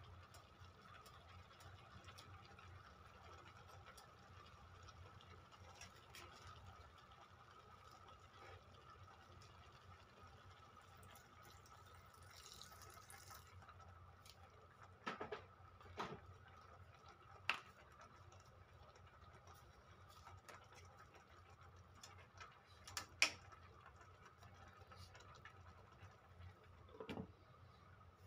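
Metal spoon knocking and scraping against a stainless steel cooking pot while vegetables are stirred: a handful of separate clinks over a faint steady hum. Near the end, a glass pot lid is set down on the pot.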